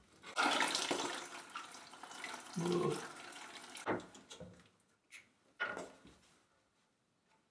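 Water rushes and splashes out of the opened pipe fitting for about two seconds as the cap comes off. A few sharp metallic clicks follow as the hose connector is fitted to the brass fitting.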